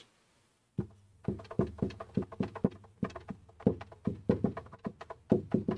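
A quick, irregular series of light taps or clicks, about three or four a second, starting about a second in, over a faint low hum.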